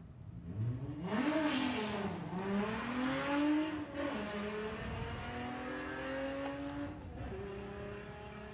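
Two VW Golfs, a Mark II and a Mark I, launching off a drag strip start line about a second in. Their engines rev hard, the pitch dropping back at each gear change, then steadier and fading as they run away down the track.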